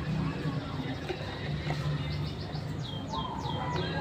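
Bulbul giving a run of short, quickly falling chirps that begins about halfway through, over a low background murmur.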